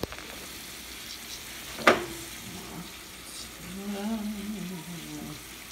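Broccoli sizzling in olive oil in a pot: a steady frying hiss, with one sharp knock about two seconds in and a short hummed voice in the second half.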